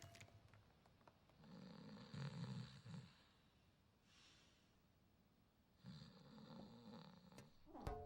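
A man snoring in deep sleep: two long snores, one starting about a second and a half in and another about six seconds in, with a faint breath between them.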